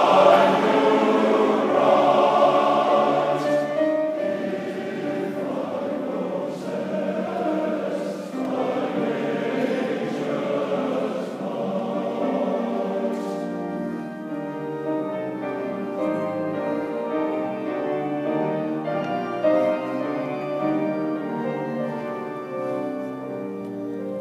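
Massed Cornish choirs singing a hymn, full and loud at first, then softer, settling into long held chords in the second half.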